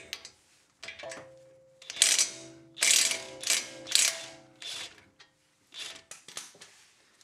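Cordless impact wrench on its third setting, hammering in about five short bursts from about two seconds in as it loosens the strut-to-steering-knuckle bolts of a Celica's front suspension.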